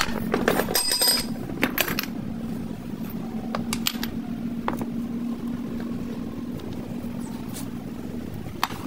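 A machine running with a steady hum, with scattered clicks and knocks over it; the hum stops near the end.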